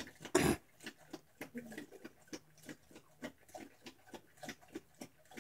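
A dog feeding from a stainless steel bowl, its mouth making a quick, even run of short sounds, about four a second.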